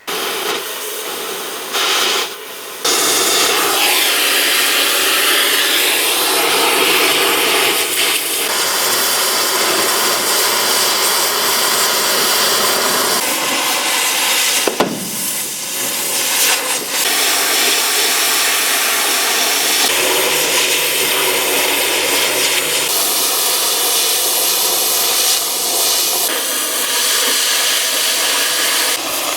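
Oxy-fuel cutting torch running as it cuts through steel hull plate: a loud, steady hissing rush of gas, changing character abruptly a few times.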